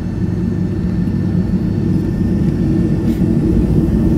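Jet airliner cabin noise from a window seat as the plane taxis before takeoff: a steady low rumble of the engines and airframe, growing slowly louder.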